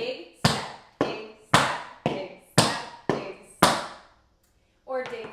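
Metal taps on tap shoes striking a wooden tap board (an O'Mara sprung floor): about eight single sharp taps, evenly spaced about two a second, each ringing briefly. They stop about four seconds in.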